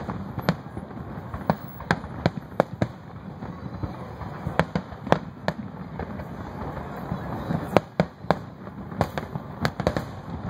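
Aerial fireworks shells bursting in an irregular run of sharp bangs, about two a second, over a steady background hiss.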